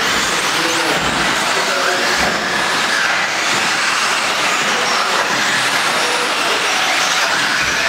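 Several 1/10-scale electric RC off-road buggies with modified brushless motors racing on a clay track. Their high motor whines shift in pitch over a steady, loud wash of gear and tyre noise.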